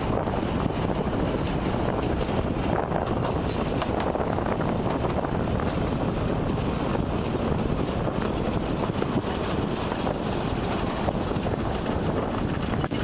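Steady rush of road and wind noise from a moving vehicle, with wind buffeting the microphone.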